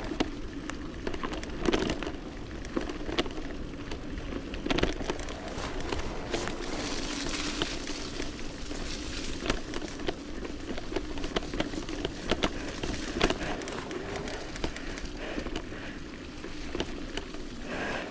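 Bafang BBS01 e-bike mid-drive motor whining at a steady pitch while riding down a muddy trail, over a hiss of tyres and mud spatter, with frequent sharp knocks and rattles from the bike jolting over the ground.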